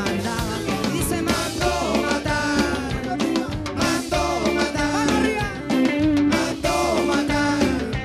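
Band playing a ska-flavoured rock song with drum kit and guitar, an instrumental passage between sung lines.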